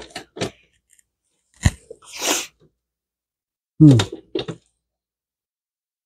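Brief handling noises: a single sharp knock, then a short breathy hiss, then a short hummed "hmm" falling in pitch from a man's voice, after which the sound cuts out completely.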